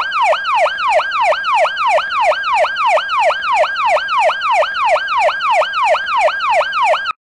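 Police siren sound effect: a fast yelping wail whose pitch sweeps down over and over, about three times a second. It cuts off suddenly near the end.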